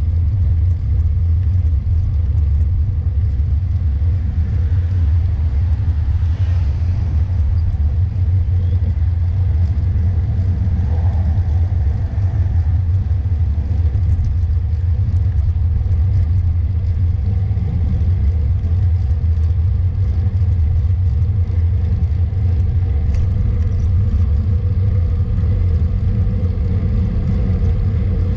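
Wind buffeting the microphone of a camera riding along on a moving road bike, a steady loud low rumble.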